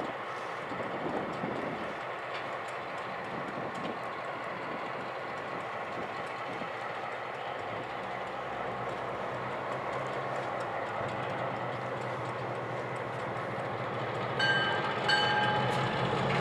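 Rolling rumble of a slow-moving freight train with scattered clicks of wheels on rail. From about halfway, the diesel switcher locomotives' engines add a low, steady drone. Near the end, two short horn blasts sound.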